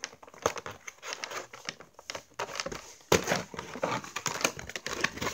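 Doll packaging being handled: irregular crinkling and crackling, denser and louder about three seconds in.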